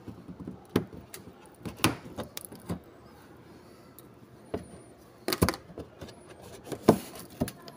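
Irregular sharp plastic clicks and knocks from hands working the plastic wheel-well fender liner of a car, the loudest a quick cluster about five and a half seconds in.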